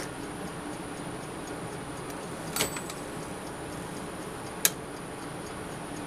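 1959 Smith-Corona Silent-Super manual typewriter giving a short cluster of sharp mechanical clicks about two and a half seconds in and one sharp, louder click near four and a half seconds, over a steady hiss with faint, regular light ticking.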